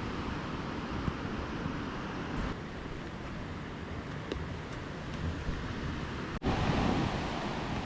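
Steady rushing noise with no distinct events. It drops slightly about two and a half seconds in, then cuts out for an instant near the end and comes back louder, as if separate recordings were joined.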